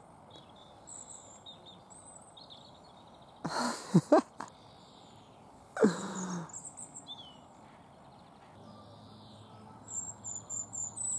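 Small birds chirping and calling in short high notes, with two louder calls that fall in pitch, about four and six seconds in, and a quick run of high notes near the end.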